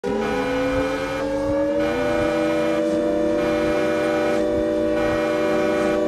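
Emergency alert (EAS) alarm: several loud tones sounding together like a siren. Two of them rise slightly over the first couple of seconds, then all hold steady.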